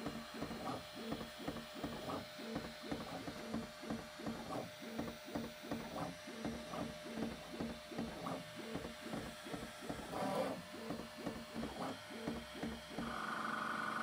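Bambu Lab P1S 3D printer running its auto-calibration: its stepper motors drive the toolhead in short repeated moves, about two a second, as the nozzle probes the bed. Near the end a steady whine sets in.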